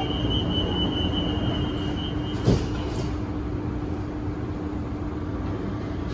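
Kawasaki & CRRC Sifang CT251 metro train running between stations, heard from inside the car: a steady rumble with a steady low hum. A high whine stops about two and a half seconds in, together with a single sharp knock.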